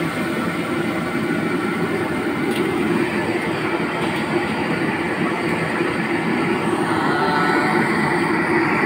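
Restaurant gas wok burner burning with a loud, steady rush and no breaks.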